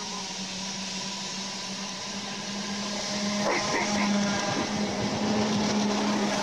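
Belgian electric multiple unit pulling into a station platform and passing close by. Its steady running hum grows louder about three seconds in, with a few short squeals from the wheels and brakes.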